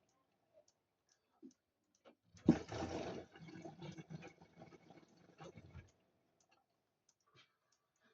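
Samsung washing machine drum tumbling a cotton wash: water and laundry slosh for about three seconds, starting with a sudden splash a couple of seconds in, between quieter pauses with faint clicks.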